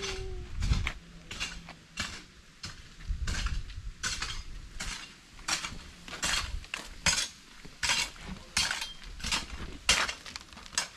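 Irregular sharp metallic clinks, about two a second, like hard metal striking metal or stone.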